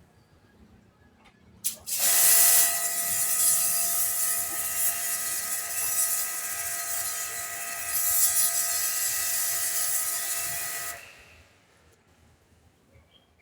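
Pressure washer spraying a bicycle chain: a loud jet hiss with the pump's steady whine under it. It starts about two seconds in, runs for about nine seconds, and cuts off.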